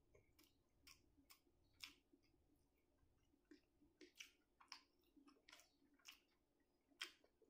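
Soft, irregular wet clicks of eating with the hands: a mouthful of rice and egg curry being chewed while fingers mix rice and curry on the plate. The clicks come at uneven intervals, with a couple of sharper ones about two seconds in and near the end.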